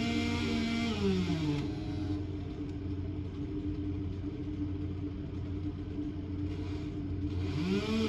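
Engine-driven wood chipper running while branches are fed into it. A higher engine note falls away about a second and a half in, leaving a steady lower hum, then climbs back up near the end.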